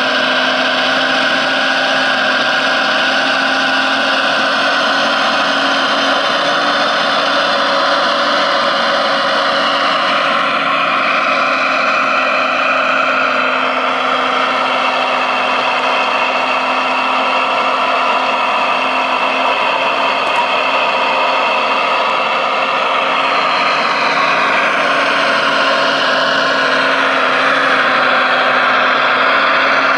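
Radio-controlled models of a Liebherr 970 excavator and a log truck working: a steady mechanical whine and hum, with the pitch shifting up and down in the second half as the machines move.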